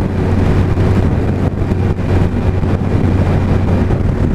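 2001 Suzuki Hayabusa's inline-four engine running steadily at cruising speed, buried in heavy wind noise buffeting the microphone while riding through rain.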